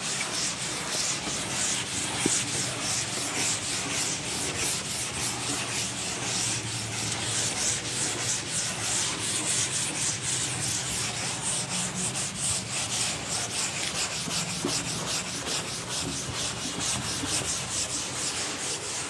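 Chalkboard duster wiping chalk off a board, a steady dry scrubbing of quick back-and-forth strokes.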